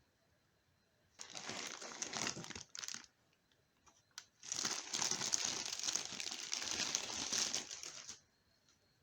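Packaging crinkling as it is handled and unwrapped, in two stretches: about a second in for two seconds, then again from about halfway through for nearly four seconds.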